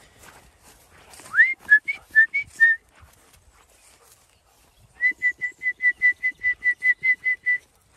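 A shepherd whistling to call the ewe flock in: a rising whistle followed by five quick short notes, then a rapid run of about fourteen short notes on one steady pitch.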